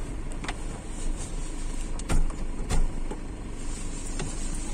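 Toyota Hilux 3.0 diesel engine running steadily, heard from inside the cab, with a few sharp clicks and knocks, loudest about two seconds in, as the driver engages four-wheel drive.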